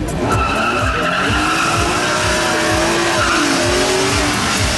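Two BMW E46 M3s with S54 straight-six engines launching at full throttle, with tyre squeal and engine notes climbing in pitch. The engine note dips once about three and a half seconds in, then climbs again.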